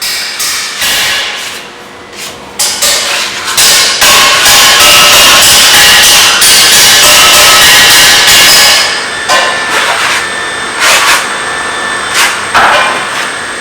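Hand hammering: a fast run of loud, repeated blows lasting several seconds, then a few separate strikes.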